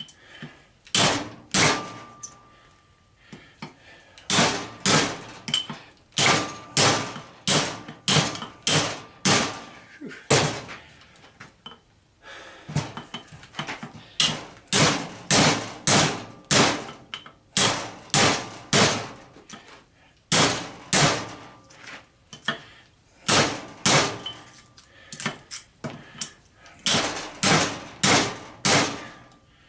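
Hammer blows on a blunt steel punch made from a cut-off railroad spike, driving the copper windings out of a golf cart charger's transformer core. The metal-on-metal strikes come about one to two a second, with a short pause partway through and a brief ring after some blows.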